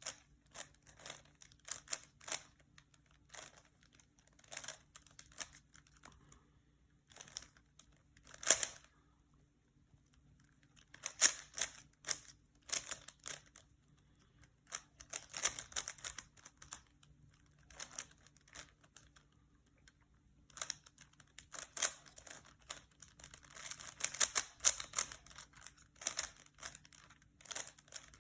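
Rubik's Cube being solved by hand: its plastic layers click and clack as they are twisted, in quick runs of turns broken by short pauses.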